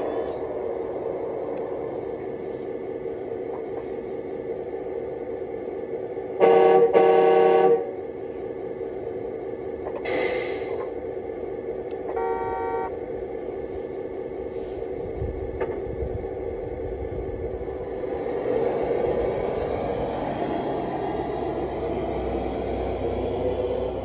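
Radio-controlled dump truck's sound module playing a diesel engine at idle, with two loud horn blasts close together about six and a half seconds in. A short hiss follows a few seconds later and a brief tone near twelve seconds, and the engine sound swells and rises as the truck pulls away near the end.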